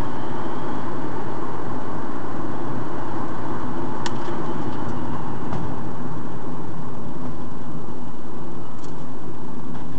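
Loud, steady vehicle engine and road noise, with faint clicks about four seconds in and again near nine seconds.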